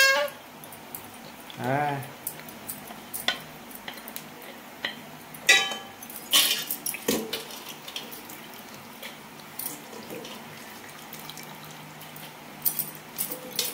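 Aluminium pots and steel vessels knock and clink now and then as soaked rice is handled and scooped in water, with a little splashing.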